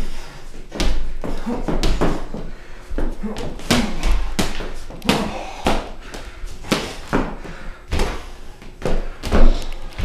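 High-heeled shoes clicking and stomping on a hardwood floor in quick, irregular footwork, with heavier thuds among the clicks; the loudest thud comes near the end.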